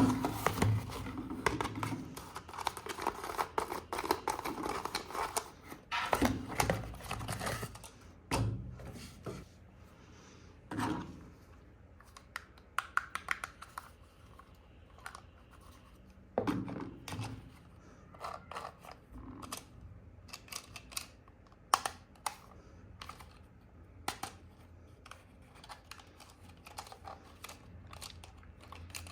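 Packaging being handled and opened: irregular clicks, rustling and tearing of cardboard and plastic wrap, busiest for the first few seconds and then sparser taps and clicks.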